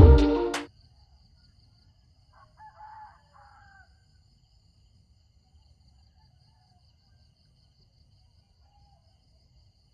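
Background music cuts off abruptly under a second in. A rooster then crows faintly once, about two and a half seconds in, over a steady faint high-pitched insect trill.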